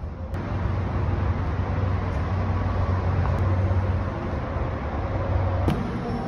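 Steady low rumble of highway traffic, with a click near the end.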